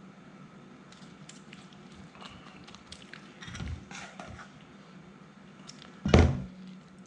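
Kitchen handling sounds while phyllo and cheese mixture are layered into a baking pan: faint rustles and light taps, then a single loud thunk about six seconds in.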